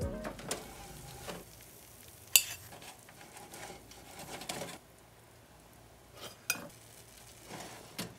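A toaster oven's metal door opened and shut, with light clanks, taps and scrapes as pizza slices are handled on its metal baking tray; the sharpest clank comes about two and a half seconds in.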